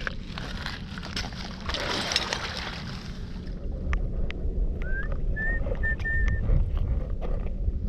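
Wind buffeting the microphone on an open foreshore, with a rushing hiss for the first few seconds, then scattered sharp clicks and a short rising whistle about five seconds in.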